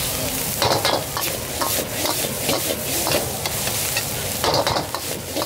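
Fried rice being stir-fried in a steel wok: a metal ladle scrapes and knocks against the pan over a steady sizzle, with a few sharper scrapes about a second in, near two seconds and at about four and a half seconds.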